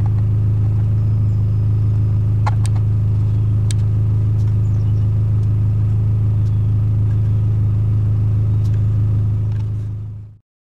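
Steady low droning hum, even in pitch and loudness, with a few faint clicks a few seconds in; it fades out near the end.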